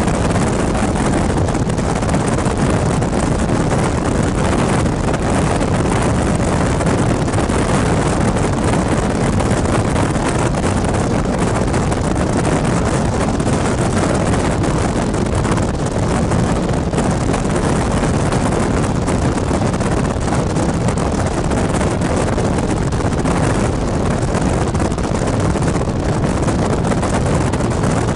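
Steady wind rushing over the microphone with tyre and road noise from a moving car, loud and unbroken.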